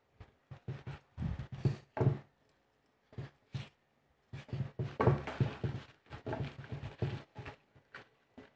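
Hands handling slit eggplants on a plate: irregular rubbing and knocking in short bursts with brief pauses between them.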